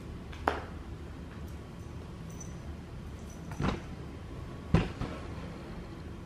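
Three short knocks over a steady low room hum: one about half a second in, then two more about a second apart past the middle, the last the loudest.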